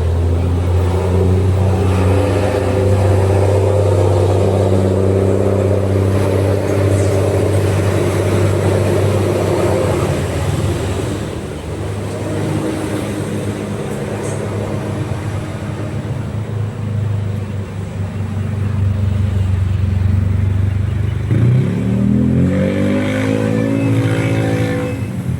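Diesel bus engine running under load with a steady low drone. It eases off about halfway through, then revs up with a rising pitch near the end.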